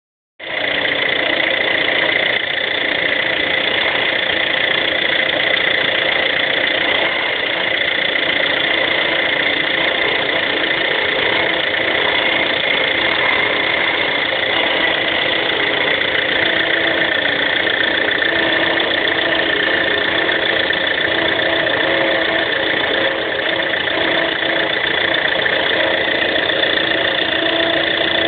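Engine of a 2008 vehicle running steadily without revving, with high, steady tones over the running: the abnormal engine noise its owner is recording as a fault.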